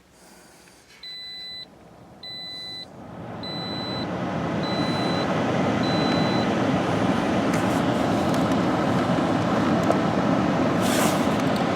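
2018 Toyota Corolla's dashboard warning chime beeping five times in the first six seconds, with the ignition switched on but the engine not started. From about three seconds in, a steady rushing of the climate-control blower fan rises and runs on.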